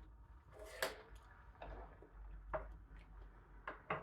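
A few faint, irregular clicks and knocks of objects being handled and set down on a table, about one a second.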